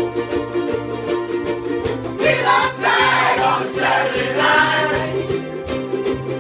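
Ukulele group strumming chords over a low bass line in a rock cover. About two seconds in, a group of voices sings over it for a few seconds.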